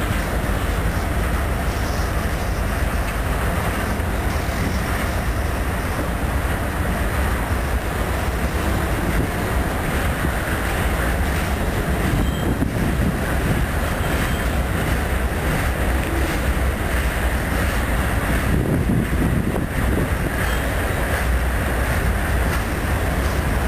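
CN freight train of tank cars rolling past, a steady rumble of steel wheels on the rails.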